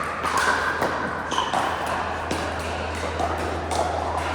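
Pickleball paddles striking the plastic ball: about five sharp pocks at uneven intervals, over a steady low hum.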